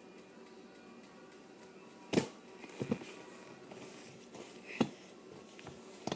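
A few scattered knocks and taps from handling and movement over a faint steady background, the loudest about two seconds in.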